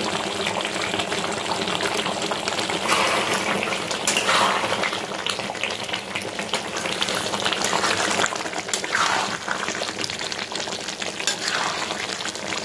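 Meat and potato curry simmering in its gravy in a steel kadai on a gas flame, with a steady crackle and hiss, while a ladle stirs through the thick gravy; the sound swells now and then. The curry is at its last stage, with the coriander leaves just added.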